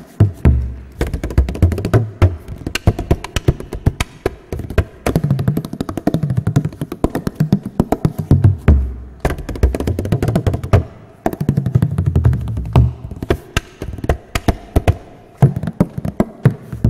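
Bodhrán drumming: fast, dense strokes of the tipper on the goatskin head with deep booms in between, their pitch stepping up and down.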